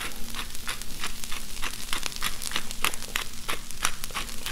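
Hand-twisted spice grinder being cranked to grind salt and pepper, a quick, uneven run of dry clicks, about five a second.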